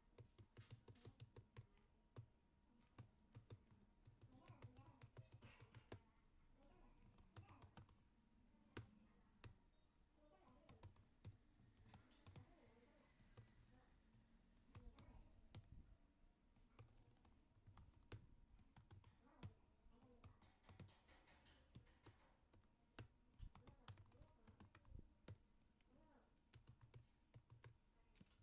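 Computer keyboard typing, faint, in quick runs of key clicks with short pauses between them.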